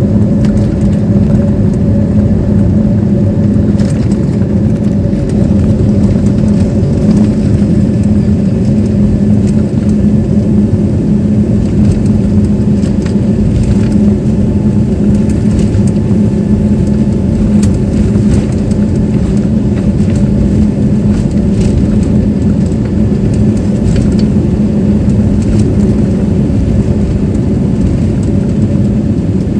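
Airliner's jet engines at takeoff power heard inside the cabin, a loud steady drone over the rumble of the wheels rolling fast down the runway, with small rattles and knocks from the cabin throughout.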